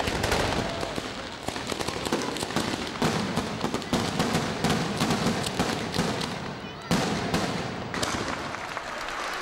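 Mascletà firecrackers and fireworks going off in a rapid, dense, irregular string of bangs, with a sharper bang about seven seconds in.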